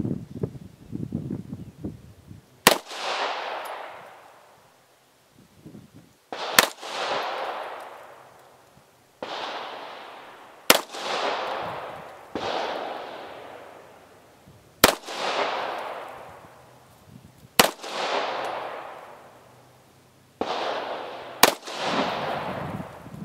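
Walther P1 9mm semi-automatic pistol fired in slow aimed fire: six sharp shots about three to four seconds apart, each trailing off into a fading echo.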